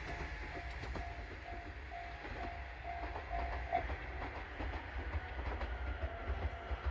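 A level-crossing alarm rings in a steady rhythm of about two dings a second and stops a little under four seconds in. Under it, the low rumble of the JR Kyushu 103 series electric train fades as it moves away from the crossing.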